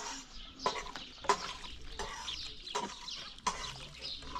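Stone hand quern grinding wheat, a dry gritty scraping with a sharper rasp about every two-thirds of a second as the upper stone is turned and grain is poured into it.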